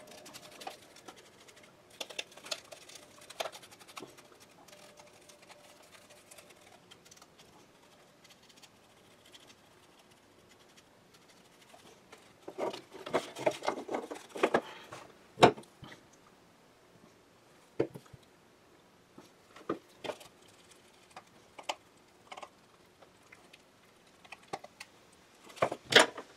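Paintbrush strokes scratching along a small model boat's hull, with scattered clicks and taps from the brush and the handled model; the strokes are densest about halfway through.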